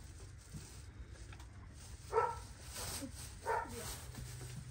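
A dog barking twice: two short barks about a second and a half apart.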